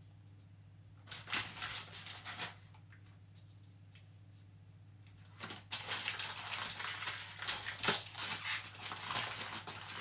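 Plastic biscuit-packet wrapper crinkling and rustling as Jammy Dodger biscuits are taken out of it, in two spells: briefly about a second in, then continuously through the last four seconds.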